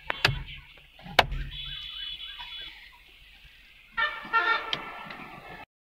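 Two sharp knocks inside the car's cabin, then, about four seconds in, the Hyundai Grand i10 Nios's horn sounding in two quick honks before it cuts off suddenly.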